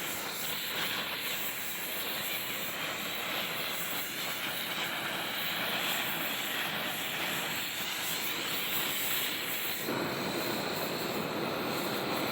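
Steady roaring hiss of a gas forge burner running, with no rhythm. Its tone shifts a little about ten seconds in.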